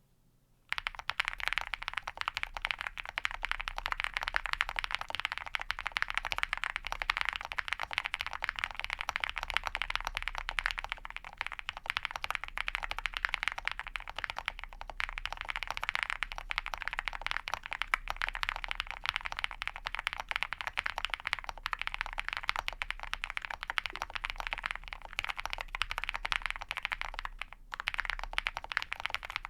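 Continuous fast typing on a custom mechanical keyboard with lubed and filmed Ca Phe Sua Da linear switches in a POM plate, under PBT keycaps: a dense, even clacking of keystrokes that starts just under a second in and barely pauses.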